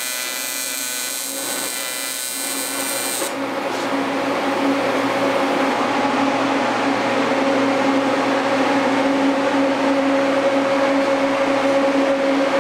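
AC TIG welder buzzing as it welds an aluminium tank, cutting off suddenly about three seconds in. After that a steady whirring hum sets in and slowly grows louder.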